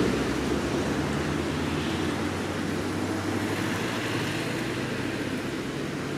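Tabby kitten purring close up while being stroked, a steady low rumble that slowly grows quieter.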